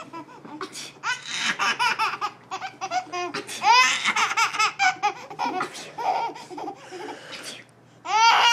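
A baby laughing in repeated high-pitched peals, set off by an adult's fake sneezes.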